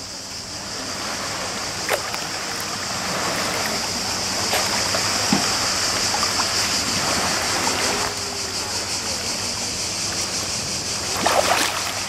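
Shallow sea water sloshing and splashing around a snorkeller swimming face-down, with a few sharp small splashes; the splashing grows louder and busier near the end as she lifts her head out of the water.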